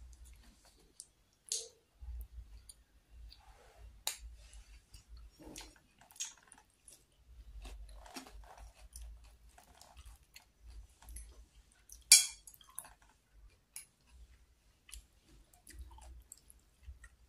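Close-up chewing of batagor, fried fish dumplings and tofu in peanut sauce: wet, intermittent mouth sounds and small smacks. A single sharp click about twelve seconds in is the loudest sound.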